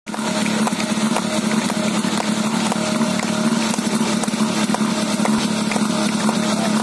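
PS 8 portable fire pump's engine idling steadily, a constant low hum with a light ticking.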